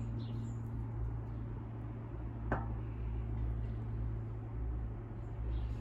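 Steady low mechanical hum over background noise, with one sharp click about two and a half seconds in and a few faint high chirps near the start and end.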